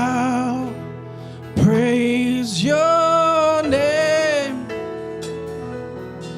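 Worship song: a singer holds long, wavering notes, about four of them, over a steady instrumental accompaniment.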